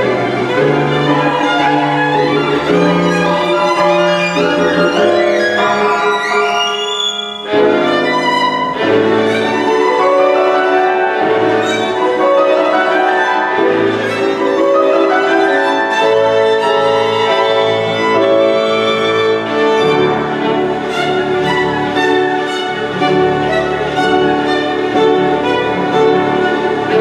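Solo violin with piano accompaniment, playing quick passagework. A fast rising run climbs to a high peak about seven seconds in and breaks off briefly, then the rapid runs go on.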